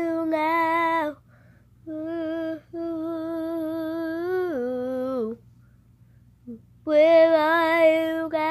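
A girl singing unaccompanied, in long held notes with a slight waver. The longest note drops in pitch as it ends, and a pause of over a second follows before the next phrase.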